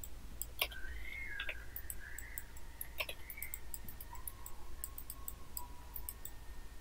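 Computer mouse buttons clicking: a few sharper clicks about half a second, a second and a half and three seconds in, with fainter ticks between them, over a low steady hum.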